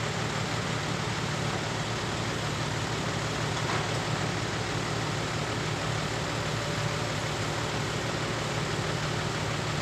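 Steady diesel engine drone of heavy machinery, with a constant hiss laid over it.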